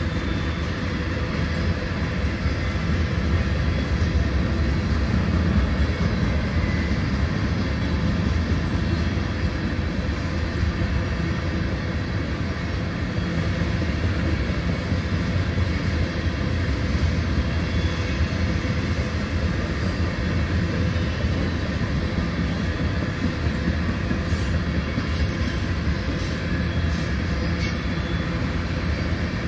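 Railroad tank cars of a freight train rolling past at a steady speed: a continuous rumble of steel wheels on the rails.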